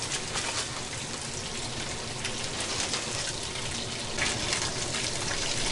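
Sea robin (gurnard) fillets frying in foaming butter and olive oil in a pan, a steady sizzle full of fine crackles that picks up about four seconds in.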